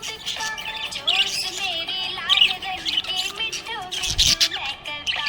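Budgerigars chirping and warbling busily: quick overlapping chirps and gliding notes, with a soft low thump about four seconds in.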